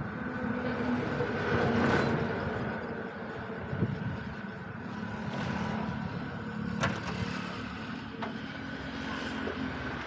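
Steady hum of an engine running close by, with highway traffic; it swells about two seconds in as a vehicle passes. A few sharp metallic taps stand out later on, from the tyre-fitting tools on the steel wheel rim.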